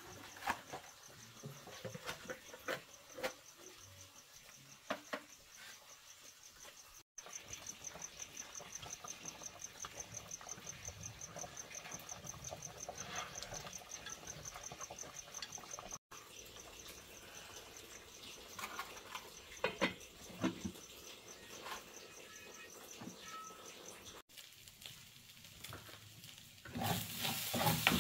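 Insects chirping in a steady, fast-pulsing high trill, with scattered sharp clicks and crackles. Near the end a loud sizzle of food stir-frying in a wok starts.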